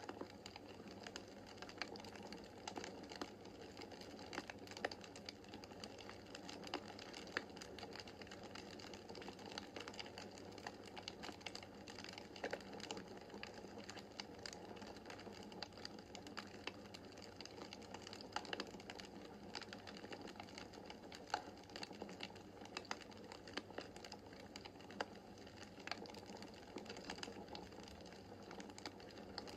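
Wood fire crackling in a fireplace: frequent irregular snaps and pops of burning logs over a steady soft hiss of the flames.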